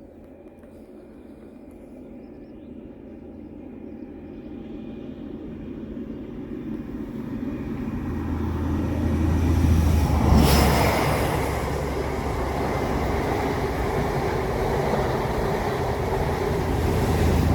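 Model train running along the track, getting steadily louder over about ten seconds as it approaches, then running on at a steady level close by.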